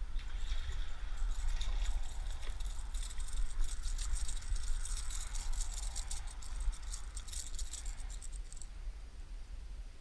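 Fishing tackle rattling and clicking as a small spotted bass is landed on a jerkbait, a fast run of fine clicks that stops about nine seconds in.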